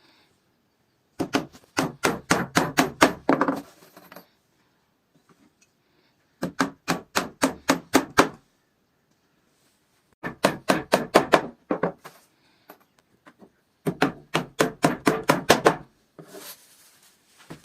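Hammer blows on wood in quick runs of about five or six strikes a second, four bursts of roughly two seconds each with short pauses between.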